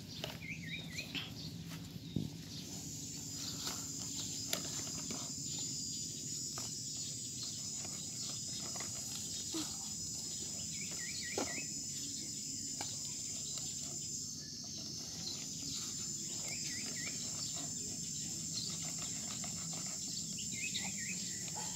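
A steady high-pitched insect drone from about three seconds in, breaking off briefly near the middle, with a bird calling a short quick run of notes several times. Faint scattered clicks and scrapes of a plastic toy excavator digging in dirt.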